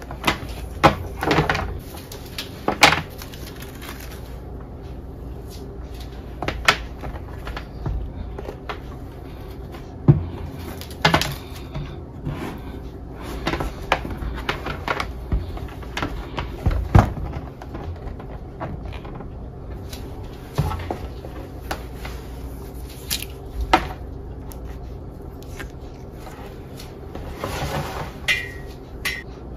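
Hands handling objects: irregular knocks, clicks and rustles, some sharp, over a steady low hum.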